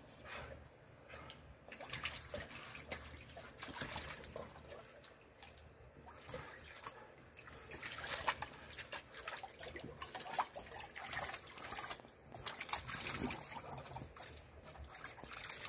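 Shallow water splashing, sloshing and trickling in an irregular run in a plastic kiddie pool as a dog steps and paws about in it.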